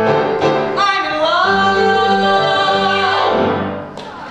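A male singer holds the final note of a musical theatre song. His voice slides up about a second in, holds steady for about two seconds, then fades away near the end.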